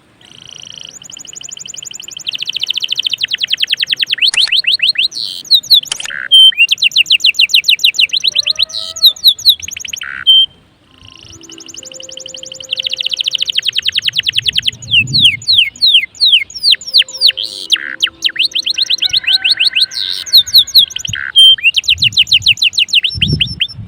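Domestic canary singing: long phrases of rapid trills and fast repeated notes, with a break of about a second near the middle. A few low thumps come near the end.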